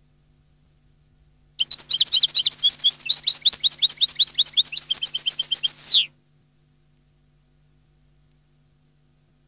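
European goldfinch singing: one rapid, run-on phrase of high twittering notes lasting about four and a half seconds, starting about a second and a half in and ending on a long falling note.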